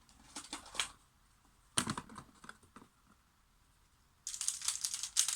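Magnetic Xman Bell pyraminx being turned by hand: a few plastic clicks in the first second, a sharp clack near two seconds in, then a quick run of rapid clicks in the last second as the layers are spun.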